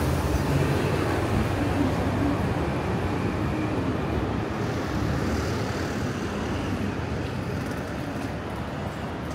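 City street traffic noise, with a heavy vehicle's engine rumbling low in the first half and easing off over the rest.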